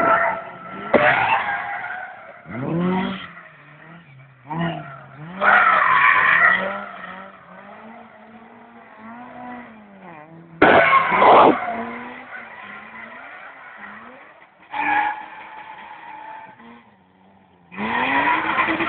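Rally cars sliding through a tarmac bend: engines revving up and down, with repeated bursts of tyre squeal, the loudest about halfway through and another near the end.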